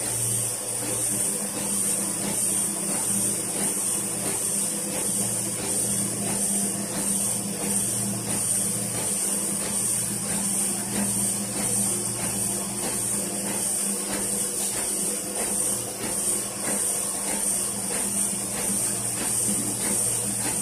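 Autoprint small sheet-fed offset printing press running: a steady motor hum under a high hiss that pulses in a regular rhythm, with light mechanical ticking as the machine cycles.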